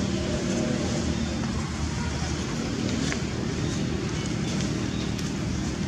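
Steady outdoor background noise, a low rumble under an even hiss, with no clear animal calls standing out.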